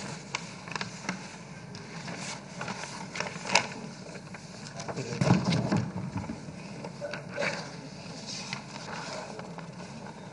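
Quiet hall room tone during a pause in speech, with scattered light clicks and rustles and a brief louder low rumble about five seconds in.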